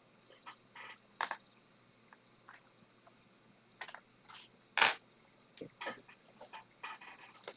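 Small hand tools working on a laptop display assembly: irregular light clicks, taps and short scrapes, with the sharpest tap a little before five seconds in.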